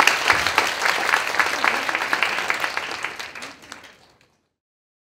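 Audience applauding, a dense patter of many hands clapping that dies away and fades out about four seconds in.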